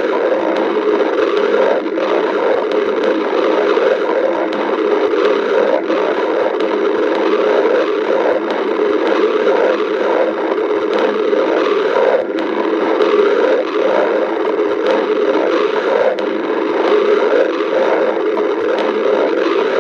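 Human stomach growling: a continuous low gurgling rumble with a quick fluttering pulse through the middle.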